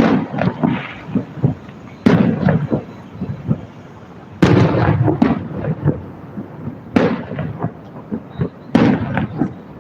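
Aerial fireworks shells bursting: five loud booms about two seconds apart, each fading out over a second or so, with smaller pops and crackle between them.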